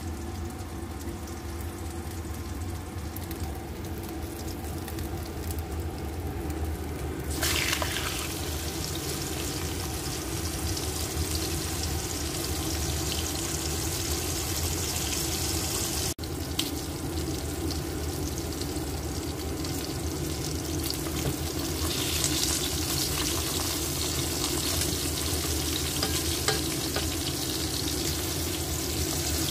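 Pork chop frying in oil in a non-stick pan: a sizzle starts suddenly about seven seconds in as the meat goes into the pan, then carries on steadily, with a momentary break near the middle. A steady low hum lies underneath throughout.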